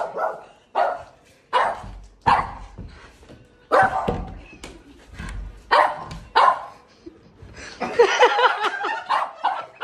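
A dog barking repeatedly, short sharp barks about a second apart, coming thicker and busier near the end.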